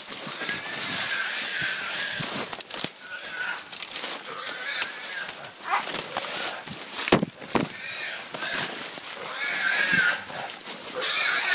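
A boar squealing and hunting dogs barking in repeated wavering cries, mixed with short knocks and rustles, getting louder near the end.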